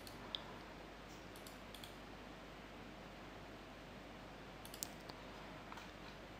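A few faint, scattered computer mouse clicks over quiet room hiss.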